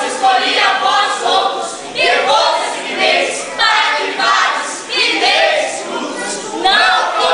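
A group of young voices singing together in unison, in phrases about a second long with no clear instrumental backing.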